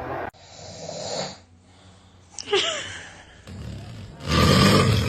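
Man snoring: a breathy snore building about a second in, then a loud snore starting about four seconds in. A short high gliding vocal sound comes near the middle.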